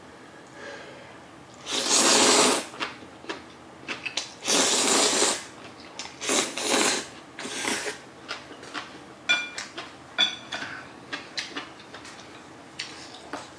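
Instant jjajang ramen noodles slurped in four loud, drawn-out sucking pulls, followed by smacking chewing sounds with a couple of short high squeaks.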